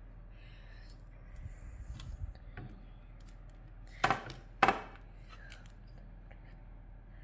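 Hands pressing dough onto a paper-lined metal baking tray. Baking paper gives two short, loud crinkles about four seconds in, half a second apart, after some faint handling sounds.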